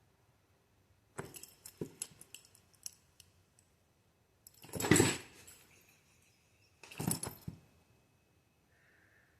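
Rattling and clattering from a cat at play. A run of light clicks starts about a second in, followed by two louder rattling bursts, one around the middle and one about two-thirds through.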